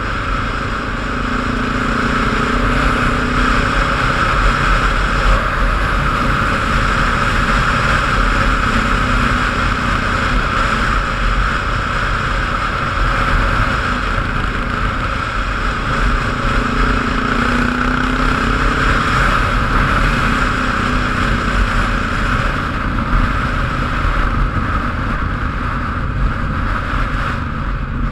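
Vehicle driving: steady engine and road noise with a low rumble, and a lower engine hum that swells and fades three times.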